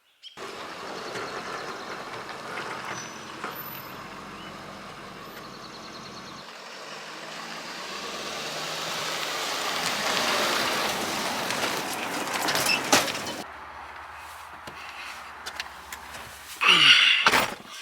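A motor vehicle on the road, giving steady engine and road noise that swells to a peak about ten seconds in and drops off abruptly a few seconds later. A brief louder sound comes near the end.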